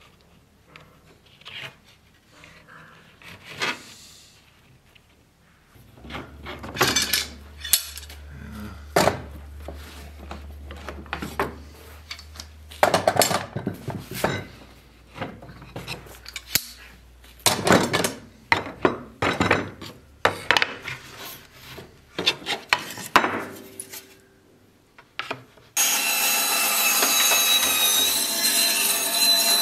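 Wooden boards and hand tools knocking and scraping on a workbench in irregular strokes. About four seconds before the end, an electric bandsaw comes in suddenly, running steadily with a thin whine as its blade cuts a softwood board.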